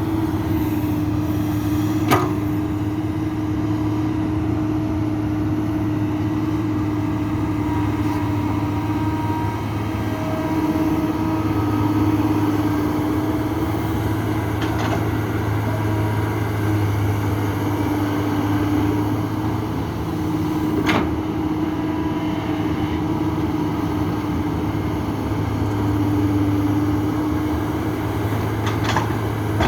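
Excavator's heavy diesel engine running steadily with a wavering hum over it, as it digs and loads soil into a dump truck. A few sharp knocks stand out, the loudest about two seconds in.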